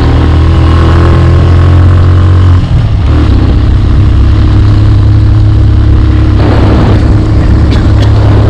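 Motorbike engine running steadily under way, heard from on the bike with road and wind noise; the engine note shifts about two and a half seconds in, with a brief dip in loudness.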